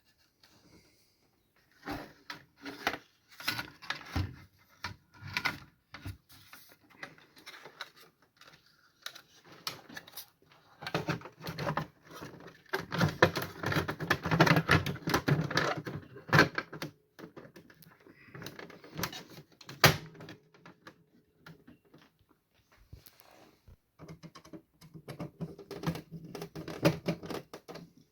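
Irregular clicking, tapping and rattling of small hard parts being handled and fitted, busiest in two stretches near the middle and the end.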